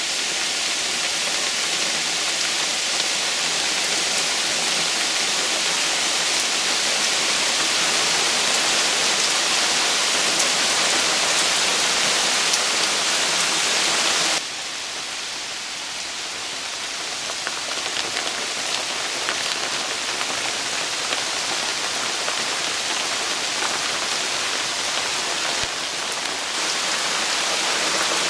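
A steady rush of falling or running water, like rain or a waterfall. About halfway through it cuts abruptly to a slightly quieter, thinner rush.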